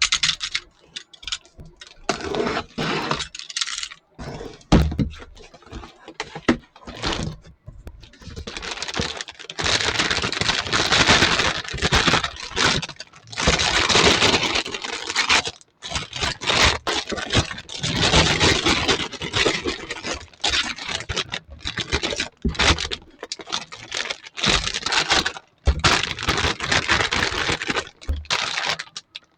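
Unboxing sounds of a toy kitchen set: plastic packaging crinkling and being pulled open, with small plastic toy pieces clicking and clattering in irregular bursts.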